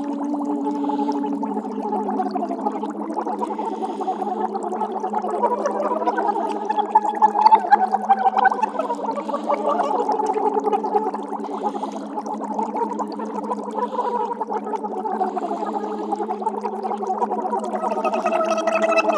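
Layered wordless vocals: several held voice tones that slide slowly up and down in pitch and flutter rapidly, giving a bubbling, water-like texture.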